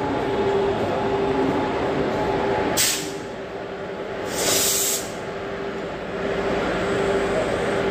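WCAG-1 dual-current electric locomotive running with a steady electrical hum. Compressed air hisses twice: a short burst about three seconds in and a longer one about a second later.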